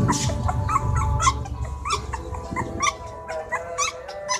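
Puppy whimpering in a run of short, high squeaks, about three a second.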